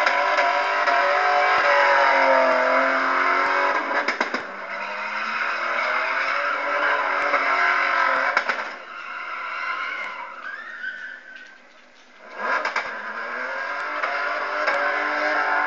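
A car engine revving hard while its tyres squeal in smoky donuts and burnouts, the revs rising and falling. The sound fades briefly about twelve seconds in, then the revving picks up again.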